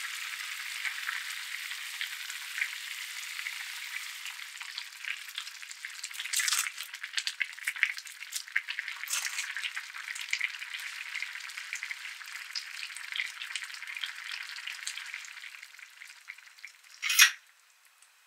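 Kimchi katsu-nabe broth bubbling and crackling in a shallow pan as it simmers, with a louder spell of spitting about six seconds in. The bubbling dies away near the end, followed by one short sharp noise.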